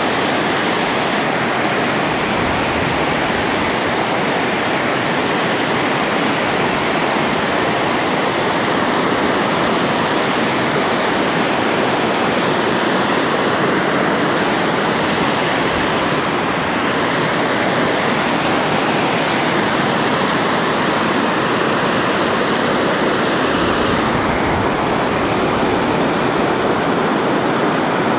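Water pouring over a dam spillway: a loud, steady rushing that does not change.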